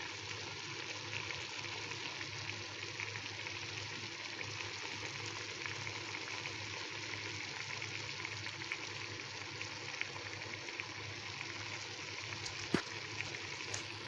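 Pot of beef and stockfish cooking on the heat, giving a steady sizzle with fine crackles. A single sharp click comes near the end.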